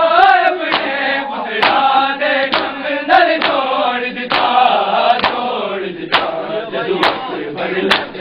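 A group of men chanting a Punjabi noha in unison, with sharp matam strikes of hands on chests keeping a steady beat about once a second.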